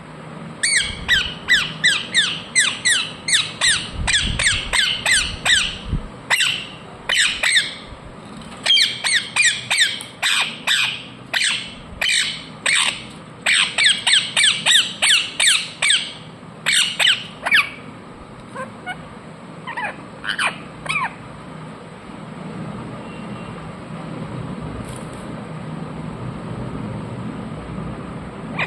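Ringneck parrot giving runs of short, sharp, high-pitched squawking calls, about three a second; the calls thin out to a few scattered ones after about 17 seconds and stop a few seconds later.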